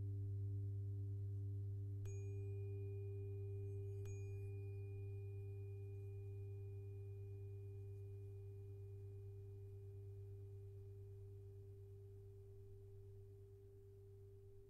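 396 Hz tuning fork struck twice, about two seconds apart, each strike ringing on in a long pure tone that slowly fades. Underneath runs a steady low drone.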